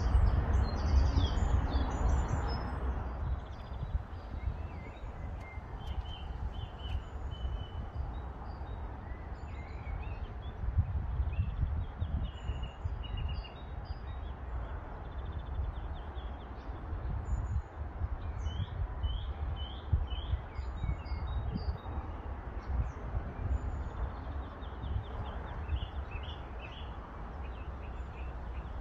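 Small birds chirping and singing with many short, high calls, over a low, uneven rumble. A louder rushing noise fades away over the first three seconds.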